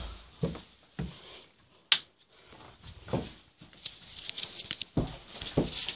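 Handling noise from a handheld tablet being carried and moved: scattered knocks and rustles, with one sharp click about two seconds in.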